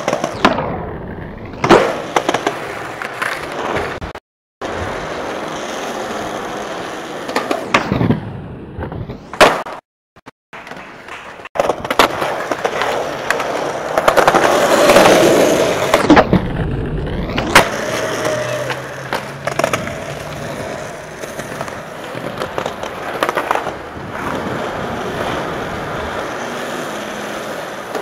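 Skateboard wheels rolling on concrete, with sharp clacks of the board popping and landing. Several clips are cut together, so the rolling stops and restarts abruptly a few times.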